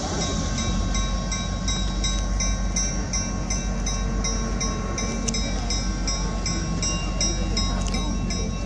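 Railroad bell ringing steadily at about three strikes a second over the low rumble of the moving train, as sounded at a road crossing.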